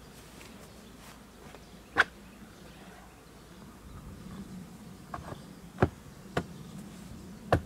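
Honeybees buzzing around the hive entrance, a steady low hum. Over it come sharp wooden knocks, one about two seconds in and four more in the second half, as the hinged wooden flight boards at the entrance are handled in their winter position.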